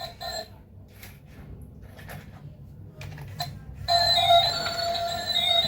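Tinny electronic tune from a battery-powered dancing toy figure, starting loudly about four seconds in after a few faint short sounds.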